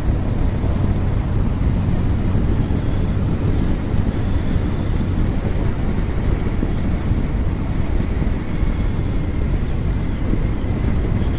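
Wind rushing over a motorcycle helmet microphone while riding, with the motorcycle's engine running steadily underneath. The noise stays even throughout, with no change in speed or pitch.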